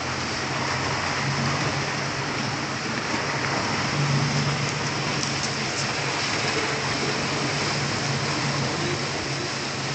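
Steady rushing noise of wind and water over a low hum, the sound of a motorboat underway on open sea.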